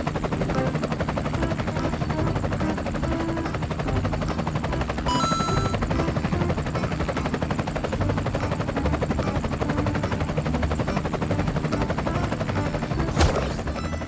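A machine running with a steady, rapid chatter throughout, with a brief beep about five seconds in.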